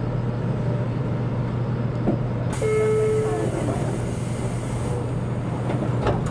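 Running noise of a JR Kyushu 813 series electric train heard from just behind the driver's cab: a steady low hum with wheel-on-rail noise and a couple of sharp clicks. About two and a half seconds in, a short held tone sounds for about a second.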